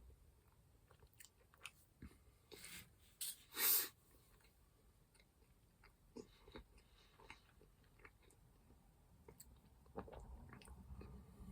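A person chewing and biting chocolate, with small mouth and handling clicks. There is a short, loud hiss-like noise about three and a half seconds in.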